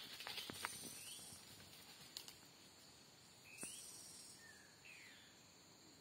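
Faint rainforest ambience: a steady high insect drone, with a few short, scattered bird whistles, one gliding down in pitch about five seconds in, and a few soft taps in the first second.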